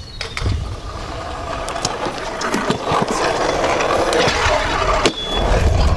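Stunt scooter wheels rolling on concrete: a rough, steady rolling noise that builds through the middle, with scattered clicks and a sharp knock about five seconds in.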